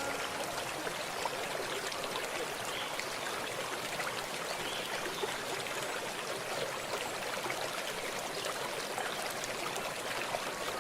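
Water running steadily down a small paludarium waterfall and stream, a continuous trickling and splashing.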